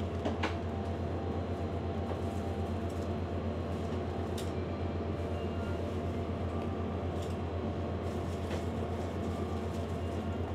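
A steady low hum, with a few faint clicks and taps over it.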